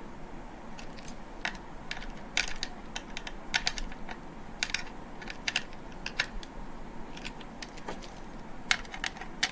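Light, irregular clicks of a screwdriver tightening the small mounting screws of a SATA SSD, coming in scattered little clusters.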